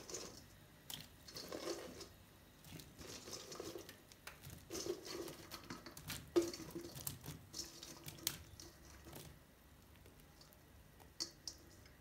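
Cauliflower florets dropped by hand into a pan of hot water: faint, irregular soft plops and splashes with a few light clicks, thinning out near the end.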